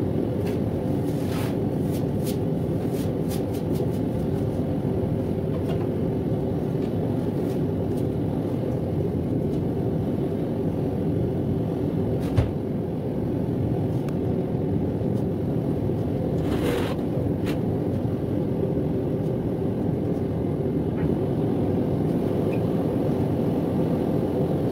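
Steady roaring rumble of workshop equipment running without a break, with a few light clicks in the first few seconds and one sharp knock about halfway through.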